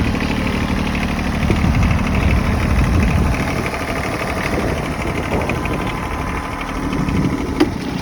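Huayee HY16c mini excavator's Kubota D722 three-cylinder diesel running steadily, a little louder and busier a couple of seconds in, with a single sharp click near the end.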